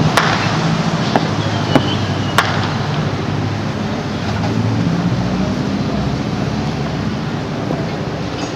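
Fireworks going off: five short, sharp pops within the first two and a half seconds, over a steady low rumble of background noise.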